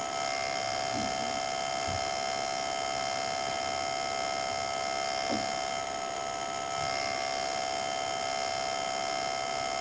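Laptop background noise: a steady electrical hum and whine made of several fixed tones over a hiss, with a few faint brief taps.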